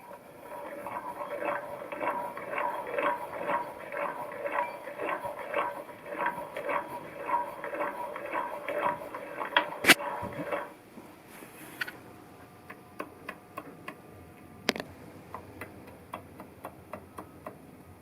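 Hand tools working on a Honda Grom engine's crankcase during disassembly. A run of regular, ringing metal taps or clicks comes about three a second, then a single sharp knock about ten seconds in. After it there are only scattered light clicks.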